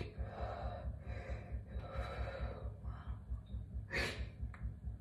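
A woman breathing heavily and shakily in a string of sighing breaths, with a sharp intake of breath about four seconds in: tearful, overcome with emotion.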